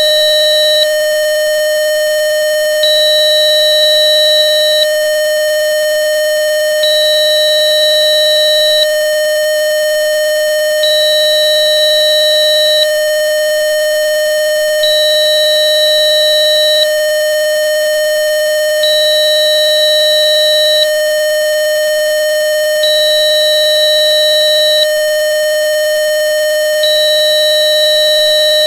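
Synthesized 608.7 Hz test tone from Rife frequency software, a steady electronic tone with fainter steady overtones above it, billed as a Rife healing frequency for coronavirus SARS. A second, high-pitched beep comes in for about two seconds every four seconds.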